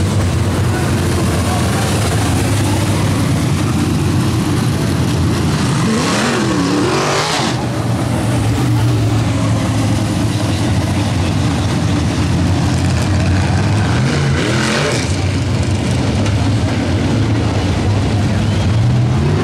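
Dirt-track modified race car engines running as the cars circle the track, with cars passing close about six and again about fourteen seconds in, the engine pitch rising then falling as each goes by.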